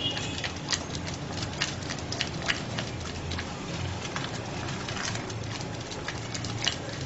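A spatula scraping and knocking against a metal saucepan as thickening cornflour custard is stirred briskly, with irregular sharp clicks several times a second over a steady low hum.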